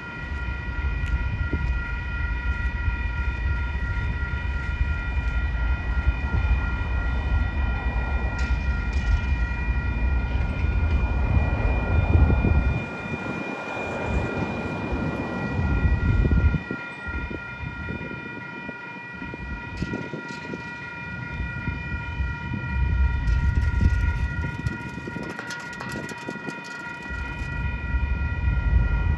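Railroad crossing warning bell ringing continuously while the signals flash, over a low rumble. A semi truck drives across the crossing about halfway through.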